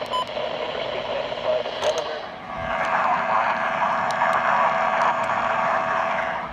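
Radio receiver hiss and static between broadcast warnings. A couple of short electronic beeps come right at the start, then a louder buzzing stretch with steady tones in it runs from about two and a half seconds until just before the end.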